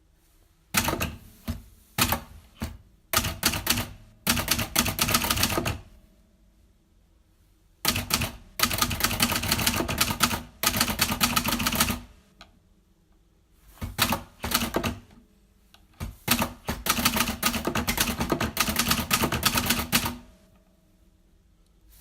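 Typewriter keys striking in quick runs of clicks: three stretches of rapid typing, each a few seconds long, separated by short pauses.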